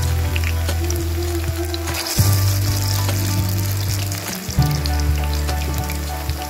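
Balls of grated potato and eggplant deep-frying in a wok of hot oil, sizzling with a constant fine crackle. Low sustained tones of background music run underneath, shifting pitch every couple of seconds.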